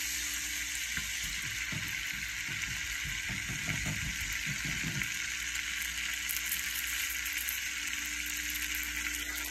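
Flour-dredged chicken breast frying in melted butter in a pan: a steady sizzle. From about one to five seconds in, tongs shifting the chicken add light knocks and scrapes.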